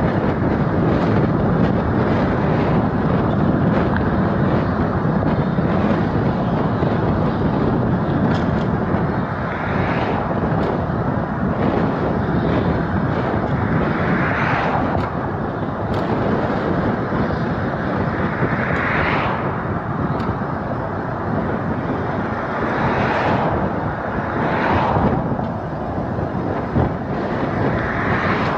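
Steady road and wind noise from a car driving along. About six times, a rush swells and fades as other vehicles pass.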